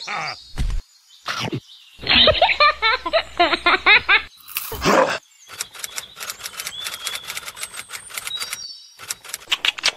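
A string of edited cartoon sound effects: about two seconds of high, squeaky chattering, a short burst, then a long run of quick clicks.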